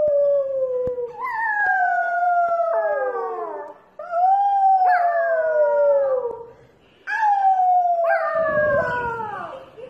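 Dog howling: three long howls, each about three seconds, sliding slowly down in pitch, with short breaks between them.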